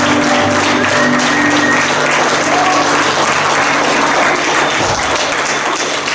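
Church congregation applauding, a dense steady clapping throughout, with the worship band's last held notes fading out under it in the first couple of seconds.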